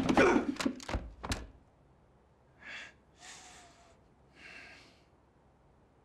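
A scuffle of sharp knocks and thuds as a man is shoved against a wooden door, ending about a second and a half in. Then come three short, heavy breaths or gasps.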